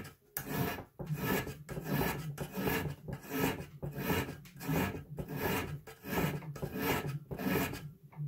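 Hand file scraping across the steel tip of a screwdriver held in a bench vise, sharpening it to an edge: a run of even, separate rasping strokes, about one every half second to second, each cut in one direction with a short gap as the file is lifted back.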